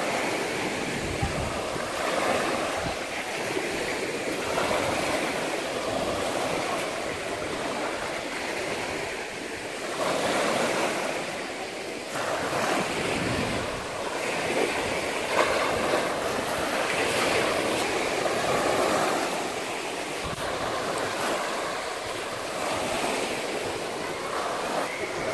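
Small sea waves breaking and washing up a pebble beach: a steady surf hiss that swells and eases every few seconds.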